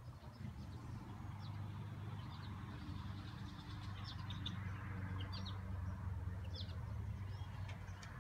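Outdoor ambience: a few small birds chirping in short high calls over a steady low hum.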